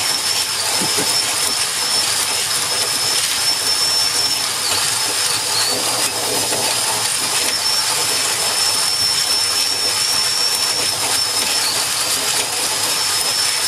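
Power drill turning a manual coffee grinder through a hex-bit adapter, grinding coffee beans: a steady motor whine over the noise of the grinding, the whine dipping briefly a few times.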